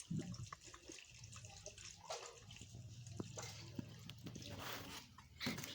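Water being poured into a cooking pot holding maize cobs: faint splashing and dripping, with a few small knocks.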